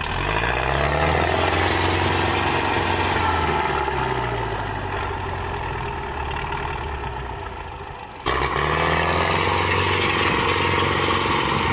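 Belarus tractor's diesel engine running hard under heavy load, straining to pull a stuck, overloaded sugarcane trolley. The revs climb at the start, sag in the middle, and are back up at full load after a sudden jump in loudness about eight seconds in.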